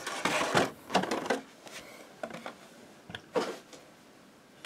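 Clear plastic blister packaging being handled: rustling and light plastic clicks, busiest in the first second, with one more brief rustle a little after three seconds.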